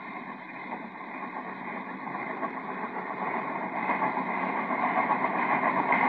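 Steam train running, a steady noisy rumble that grows steadily louder as it approaches, heard through a thin old film soundtrack.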